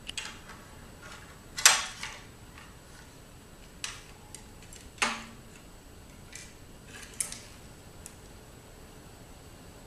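A metal utensil clinking and scraping against a plate on a glass tabletop: irregular sharp clinks, the loudest about one and a half seconds in, and one near the middle leaving a short ringing tone.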